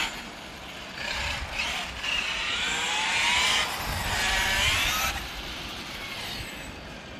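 Brushless electric motor and drivetrain of an MCD XR5 radio-controlled car whining as it accelerates in three bursts about 1, 2 and 4 seconds in, the pitch rising each time, then fading.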